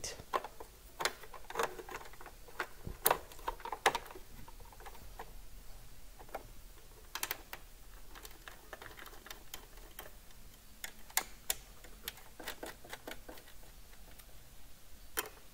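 Irregular clicks and taps of plastic and metal parts, the Singer M1000 sewing machine's needle plate and plastic cover being handled and fitted back into place, with a few small clusters of clicks.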